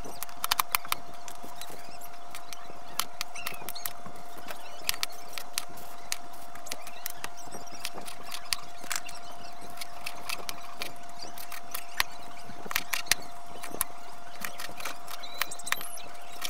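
Kitchen knife slicing garlic, onion and green chilies on a plastic cutting board: irregular sharp taps of the blade on the board, with a quick cluster about half a second in and several more near the end. A steady high tone runs underneath.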